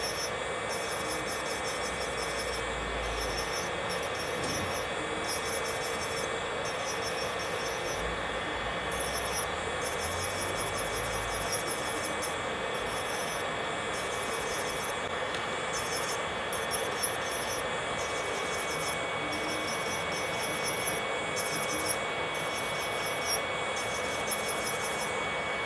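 Electric nail drill (e-file) running at a steady whine while its bit grinds gel off fingernails, a high scratchy rasp that comes and goes in stretches as the bit touches the nail and lifts off.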